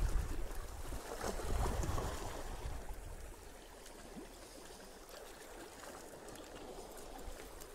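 Small sea waves washing and lapping against shoreline rocks, louder for the first two seconds or so, then settling to a softer steady wash.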